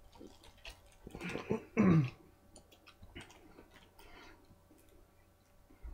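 A person chewing a large mouthful of chicken sandwich fast, with small wet mouth clicks, and a short throaty vocal sound falling in pitch about two seconds in.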